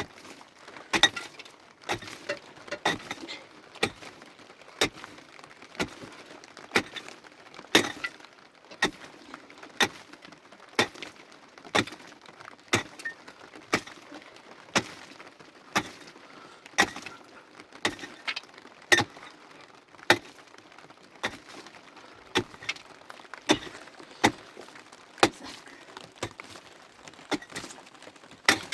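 A long series of sharp strikes or knocks, about one a second, some coming in quick pairs.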